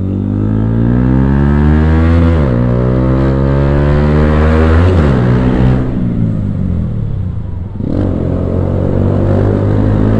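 Loud Yamaha R15M single-cylinder engine through an aftermarket Akrapovic exhaust, accelerating through the gears. The pitch climbs and drops sharply at two upshifts, about two and a half and five seconds in. The throttle closes briefly near the end, then the engine runs steadily.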